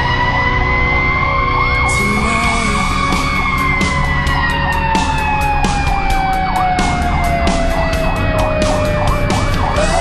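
Fire rescue truck's sirens heard from inside the cab while it runs to a call. One siren winds slowly up, coasts down over several seconds and starts winding up again near the end, while a second siren yelps rapidly underneath. The truck's engine rumbles beneath it all.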